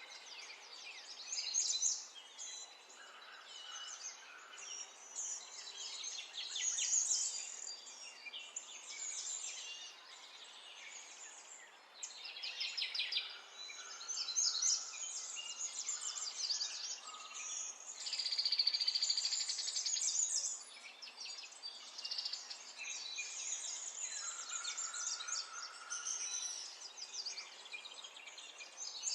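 Several small birds chirping and singing at once, a continuous overlapping chorus of high tweets and rapid trills.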